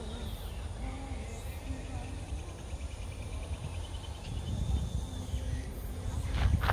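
Outdoor ambience: a faint, high insect trill over a steady low rumble, with a couple of louder scuffs near the end.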